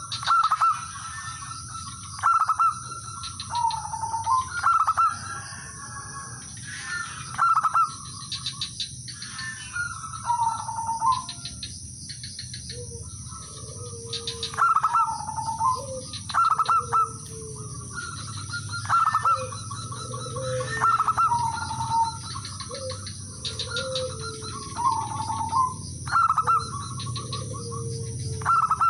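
Male zebra dove calling over and over to a rival: each call is a quick run of stuttering notes ending in a clear coo, repeated every two to three seconds. From about halfway, a second, lower-voiced dove calls in the gaps.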